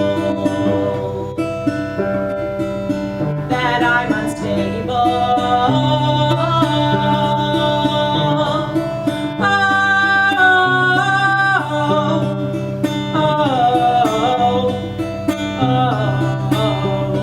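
Live acoustic music: a plucked and strummed guitar accompaniment under a higher melody line of held, wavering notes that change every second or two, an instrumental stretch without words near the end of the song.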